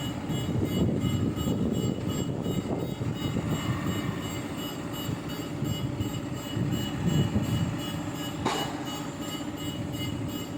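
Heavy machine's diesel engine running steadily during loading onto a trailer, its rumble swelling twice under load, with a sharp metallic knock near the end.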